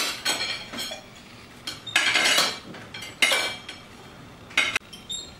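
Knife and fork scraping and clinking against dinner plates in a string of short, irregular bursts, with a couple of light ringing clinks near the end.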